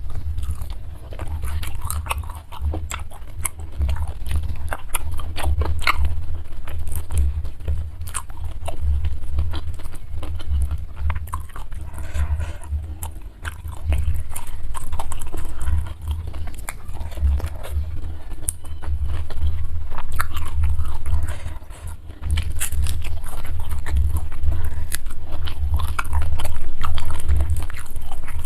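A person chewing and biting food close to the microphone, with frequent crisp crunches over repeated low chewing thumps, while eating a meal of fried carp with rice and sambal.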